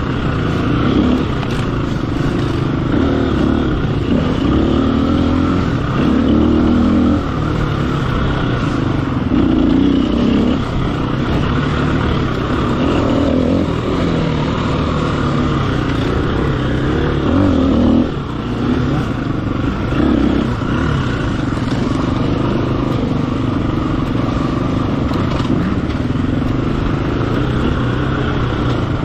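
Off-road motorcycle engine running hard under constantly changing throttle, its pitch rising and falling as the rider works through a woods race trail, briefly easing off now and then.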